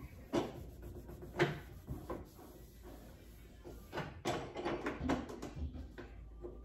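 Knocks and clatter of metal parts on a gas cooktop being handled while it is wiped down. Two single knocks come in the first second and a half, then a quicker run of knocks and scraping about four seconds in.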